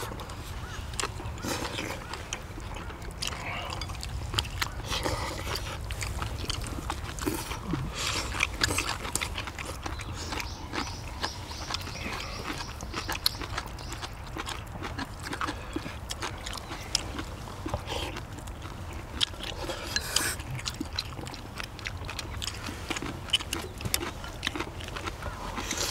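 Several people eating spicy braised monkfish with bean sprouts: close-up chewing and slurping, with frequent small clicks of chopsticks on plates and bowls, over a steady low rumble.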